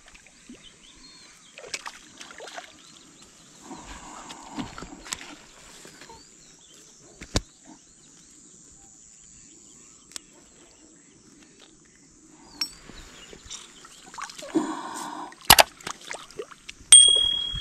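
A hooked tilapia being landed and handled at the water's edge: splashing and sloshing, rustling, and a few sharp clicks and knocks, the loudest near the end, as the fish is unhooked and put into a mesh keep net.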